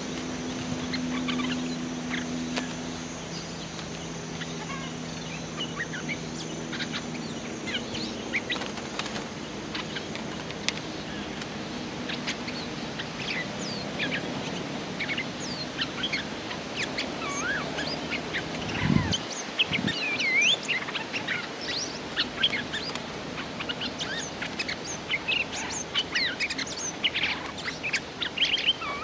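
Bulbuls calling with many short chirps and quick rising and falling whistled notes, busier in the second half. A low hum runs under the first few seconds, and a dull thud comes about two-thirds through.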